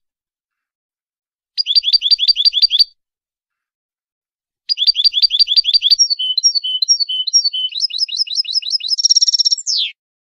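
European goldfinch song from a Malaga-style competition song recording. About a second and a half in there is a phrase of quick repeated chirps lasting about a second. About four and a half seconds in, a longer phrase begins with the same chirps, moves into varied twittering notes, and ends near the end in a fast trill and a falling note.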